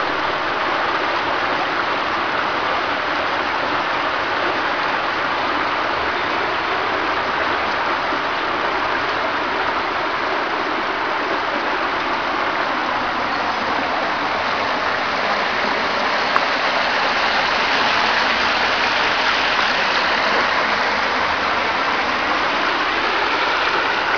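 Floodwater from an overflowing brook running fast across a damaged tarmac lane, a steady rushing noise that grows a little louder in the second half. One brief click about two-thirds of the way through.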